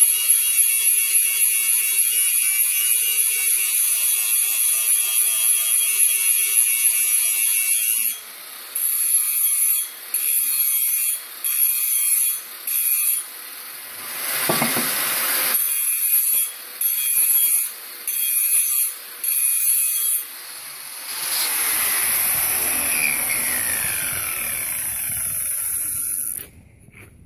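Angle grinder grinding the end of a steel pipe for weld seam preparation: a steady high-pitched grinding whine for about eight seconds, then a series of short grinding bursts. Near the end it runs again with a falling pitch as it slows, before the sound stops abruptly.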